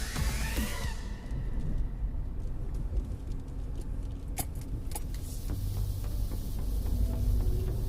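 Low rumble of a 2012 Jeep Liberty driving over rough ground, with a couple of sharp clicks or rattles about four and a half and five seconds in.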